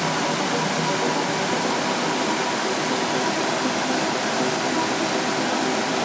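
Stream flowing: a steady, even rush of babbling water.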